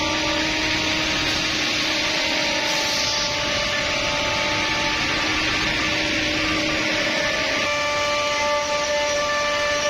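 Holztek CNC nesting router running on a wood panel: a steady whine from the spindle over a constant hiss of cutting. The whine changes pitch about three quarters of the way through.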